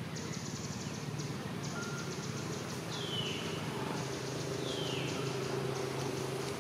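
A long-tailed macaque chewing corn kernels: quick, irregular crunching clicks over a steady low hum. Two short falling calls come about three and five seconds in.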